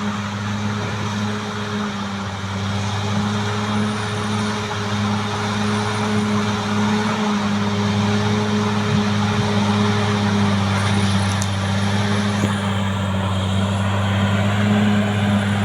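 CAT D6R XL bulldozer's diesel engine running steadily with a constant low drone.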